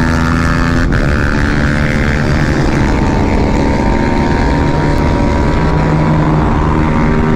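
Honda ADV 150 scooter's single-cylinder engine running steadily at high revs while cruising at about 100 km/h, a constant drone.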